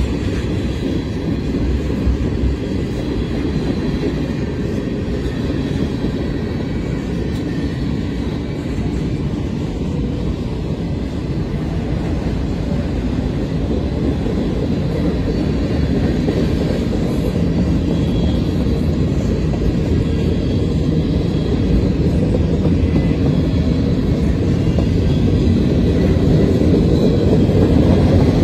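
Freight cars of a mixed train, tank cars, an autorack and gondolas, rolling past with their steel wheels on the rails: a steady low rumble that grows a little louder near the end.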